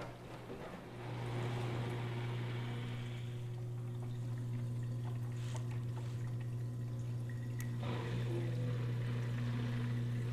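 Hava R01 countertop dishwasher at the end of its final rinse: its pump hums steadily, growing louder about a second in, with water pouring and splashing inside.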